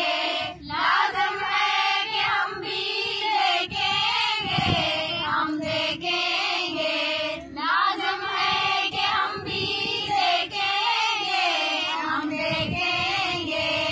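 A group of young women singing together.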